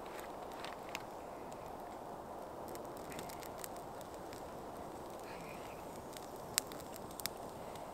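Small campfire of damp sticks burning, with scattered sharp pops and crackles over a steady soft hiss; the two loudest pops come near the end.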